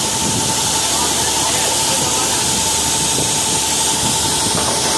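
Steady loud hiss with a thin, steady high whine running through it, from the underwater-walk boat's air supply pumping air down to the walkers' helmets, with the air bubbling up at the surface.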